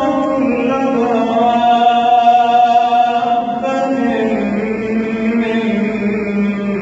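A man's voice reciting the Quran in slow melodic chant, drawing out long unbroken notes whose pitch glides gently downward.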